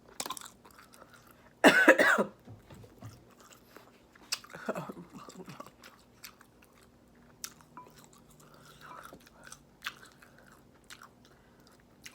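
Close-up wet chewing and mouth clicks of someone eating shrimp and potatoes in sauce. About two seconds in comes a short, loud vocal sound, and a quieter one follows about a second and a half later.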